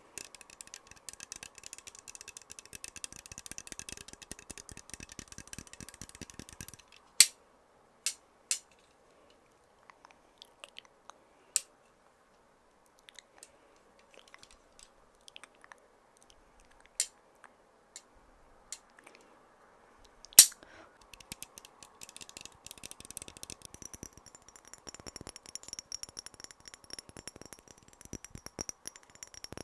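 Close-miked ASMR trigger sounds. About seven seconds of fast tapping, then a handful of single sharp clicks, then more fast tapping and scratching with a thin high ringing over it near the end.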